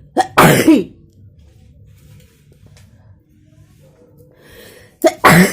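A person sneezing twice, about five seconds apart, each a loud sudden burst whose voiced cry falls in pitch.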